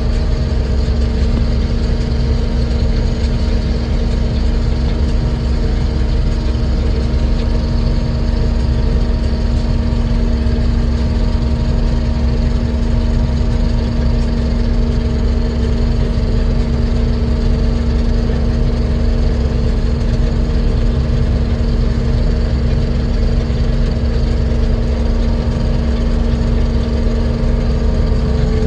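Combine harvester running steadily: a constant engine drone with a steady hum over it, unchanging throughout.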